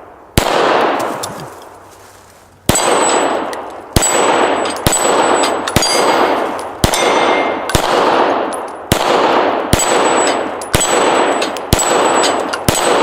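Hudson H9 9mm pistol fired about a dozen times, first two shots spaced apart and then a steady string of roughly one shot a second, each shot echoing away with a high metallic ring of struck steel after most. The pistol is feeding hollow-point rounds without a malfunction.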